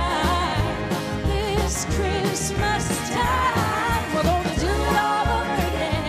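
Live band playing an upbeat Christmas pop song: button accordion and fiddle over bass and drums, with a steady bass pulse.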